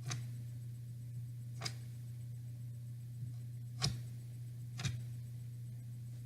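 A few short, light clicks, four of them spread a second or two apart, from a wooden craft stick knocking against the bowl while stirring thick fluffy slime, over a steady low hum in the recording.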